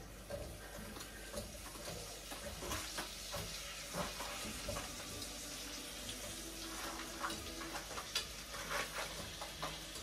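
Meat and onions sizzling in a pot on the stove, with scattered clicks and knocks of a plastic freezer container as a frozen block of celery and herbs is worked out of it.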